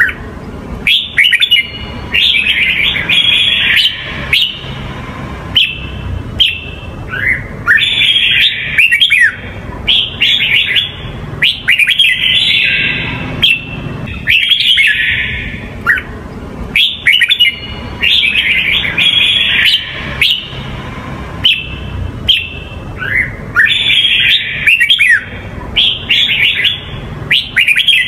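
Red-whiskered bulbul singing: bright, quick warbled phrases with fast rising notes, repeated every few seconds, over a low steady background hum.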